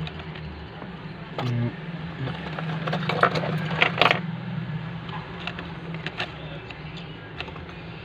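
Small clicks and metallic clinks of hand tools and phone parts being handled on a workbench during phone-board rework, loudest in a cluster about three to four seconds in, over a steady low hum.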